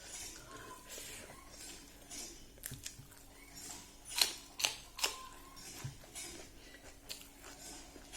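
Close-up eating sounds: chewing and crunching of fried dried pork with rice, with a few sharp clicks and taps, the loudest a quick cluster about halfway through.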